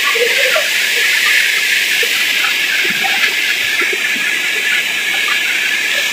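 Waterfall water rushing and splashing over sloping rock, a steady hiss.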